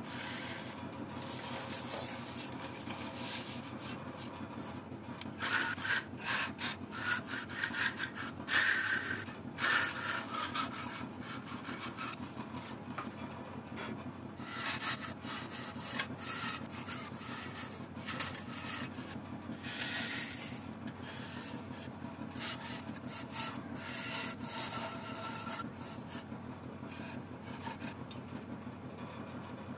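Wood lathe running with a steady hum while a hand-held tool scrapes the spinning wooden vase in uneven surges, loudest from about five to eleven seconds in.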